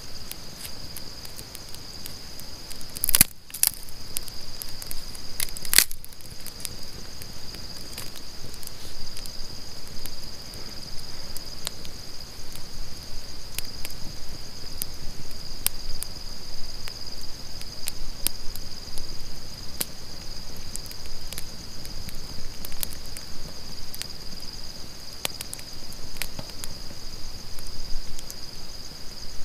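Small twig campfire crackling, with sharp pops and snaps throughout and two louder snaps about three and six seconds in, over a steady high-pitched chorus of night insects.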